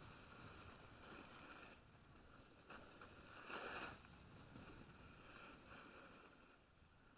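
Faint hiss of a snowboard sliding and carving on packed piste snow, swelling once in a louder scrape about three and a half seconds in.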